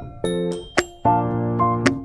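Background music: electronic keyboard chords with a sharp percussion hit between them, in a steady beat.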